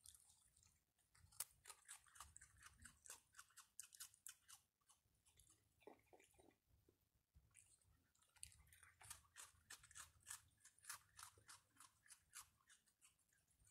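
A raccoon and an opossum chewing and crunching dry food and biscuits, faint, in quick runs of crisp crunches with a couple of short pauses.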